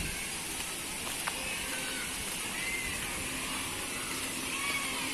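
Steady outdoor background hiss around a water park pool, with a few faint short high calls rising and falling through it.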